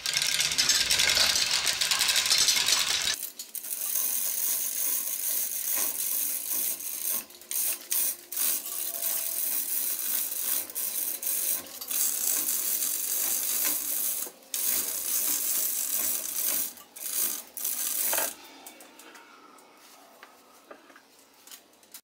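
Manual chain hoist lowering a heavy cast-iron rotary table: the hand chain rattles and clicks through the hoist in a steady metallic clatter with short pauses. It is loudest in the first few seconds and dies away after about 18 seconds as the table comes to rest.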